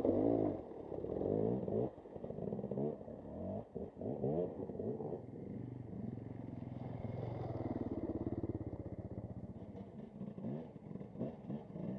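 Enduro dirt bike engines revving hard and easing off as the bikes climb a muddy, wet trail. The engine pitch rises and falls: loudest in the first couple of seconds, steadier and quieter in the middle, with uneven bursts of throttle again near the end.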